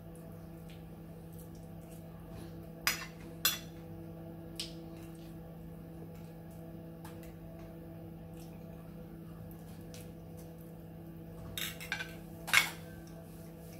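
Metal cutlery clinking against a ceramic plate during eating: two sharp clinks about three seconds in and a cluster near the end, the last the loudest, over a steady low hum.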